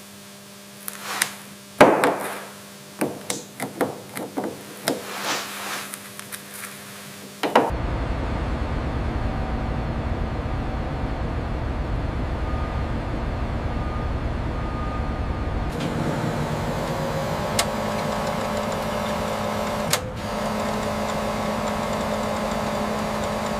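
Irregular metal knocks and clanks from bolting work on a steel structure, over a steady hum. About seven seconds in this gives way abruptly to a loud, steady low rumble of heavy machinery.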